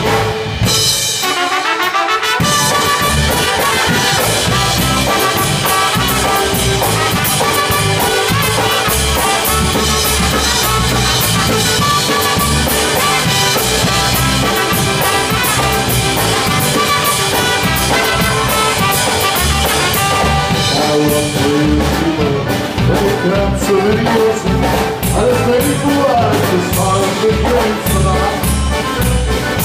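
Live polka band: trumpet and trombone play a horn passage together over drums and bass. Near the end a man's voice starts singing.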